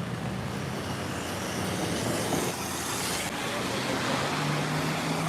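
Street traffic in the rain: a steady hiss of rain and tyres on wet road, with a heavy vehicle's engine hum growing louder about four seconds in.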